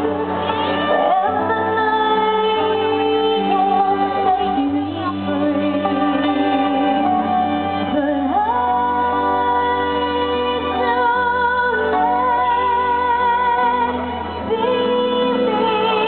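A woman singing a slow song with a live band, holding long notes, recorded from the audience in a concert hall.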